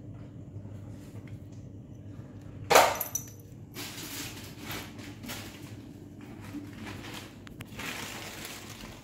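A single sharp crash about three seconds in, something hard striking the floor with a brief glassy ring, then scattered rustling and scuffling noises.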